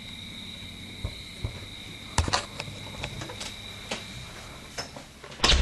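Crickets chirring as a steady high drone, with a few faint clicks and knocks scattered through it and a louder knock just before the end.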